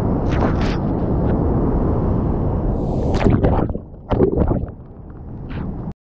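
Wind buffeting the microphone: a low, rumbling rush with a few knocks about three seconds in. It dies down near the end, then cuts off.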